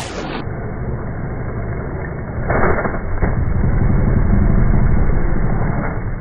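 TRS Raga Racing 300 trial motorcycle's two-stroke engine chugging at low revs and swelling as the bike climbs rock steps, sounding muffled. Sharp knocks about two and a half seconds in and again just after are the tyres or frame striking rock.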